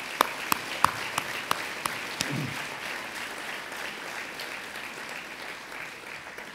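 A large audience applauding, with a few sharper single claps close by in the first two seconds; the applause dies down near the end.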